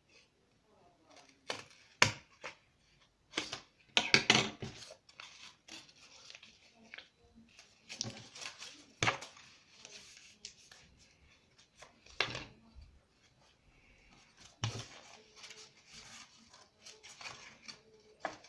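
Scissors snipping and paper being handled: scattered sharp snips and clicks a few seconds apart, with soft rustling of paper between them.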